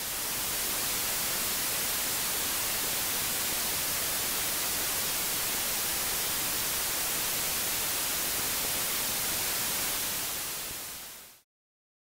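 Steady hiss of white noise like an untuned television's static, brightest in the high end. It swells up in the first second, holds level, and fades out shortly before the end.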